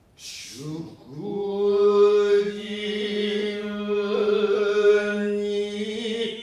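Stylized kyōgen stage chanting: after a short breathy sound, the voice rises about a second in and holds a long, steady drawn-out pitch until just before the end.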